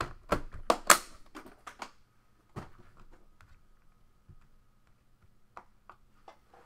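Hard clacks and clicks of clear plastic card holders, a card box and a metal case being handled and set down on a tabletop: a quick cluster of sharp knocks in the first second or two, then a few scattered lighter clicks.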